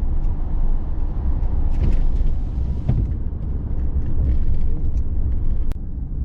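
Ford F-150 driving, heard from inside the cab: a steady low rumble of road and tyre noise with no hum or whirring from the front driveline, the new four-wheel-drive actuators running quiet. A sharp click comes near the end, after which the rumble is a little softer.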